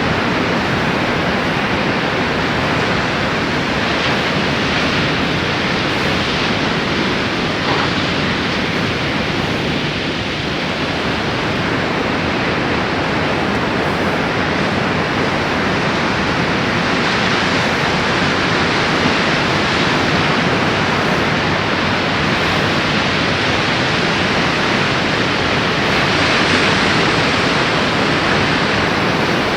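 Steady rushing sea noise, an even hiss with no rise and fall of separate waves.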